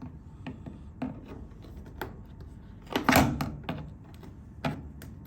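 Scattered clicks and knocks of a screwdriver working on a washing machine's plastic control panel while its screws are being removed, with one louder clunk and scrape about three seconds in.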